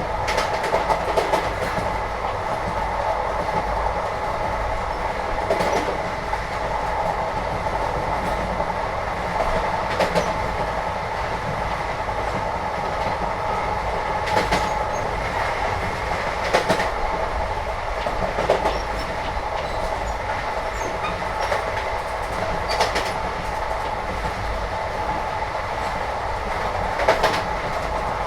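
Indian passenger train heard from inside a carriage: a steady running rumble, with sharp knocks every few seconds as the wheels pass over rail joints.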